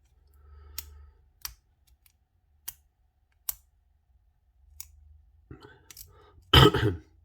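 Hook pick and tension wrench working the pins of a brass pin-tumbler padlock: single sharp metallic clicks about a second apart, then a louder short clatter near the end.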